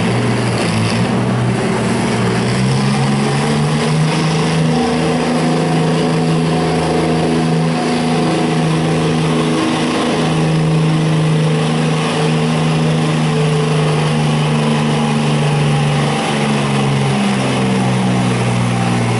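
Oliver 1720 tractor's engine running hard under load as it drags a weight sled down the pulling track. The note is loud and steady, with only small shifts in pitch.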